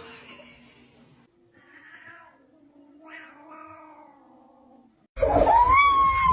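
A cat meowing: two quieter drawn-out meows, then about five seconds in a much louder, long yowl.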